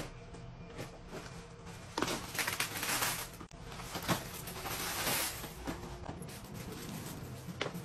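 Individually wrapped candies pouring out of a cardboard box onto a heap, a rustling, clattering rush of plastic wrappers that starts about two seconds in and lasts a few seconds, followed by scattered smaller clicks and the cardboard box being torn open.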